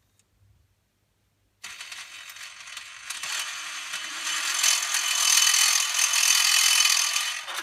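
MMCD-3 disc changer's motor and gearing grinding and rattling as it switches discs, starting about a second and a half in and building up, extremely loud. The noise comes from a fault in the gearing or motor that WD-40 on the moving parts has not cured.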